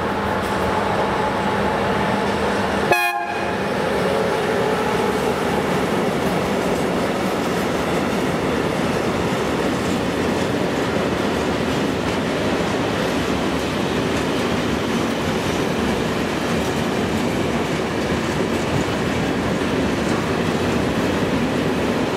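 Freight train of tank wagons rolling past behind an electric locomotive: a steady loud rumble of wheels on the rails. About three seconds in there is one short, sharp sound.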